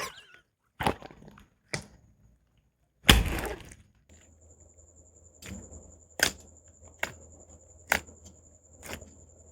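Glossy slime being pressed and poked, giving a string of sharp air-bubble pops about once a second, the loudest and longest about three seconds in. From about four seconds a faint steady high whine and low hum sit under the pops.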